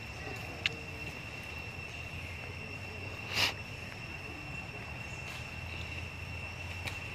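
Insects droning steadily on one high pitch over a low rumble, with a sharp click just under a second in and a short, louder noise burst about three and a half seconds in.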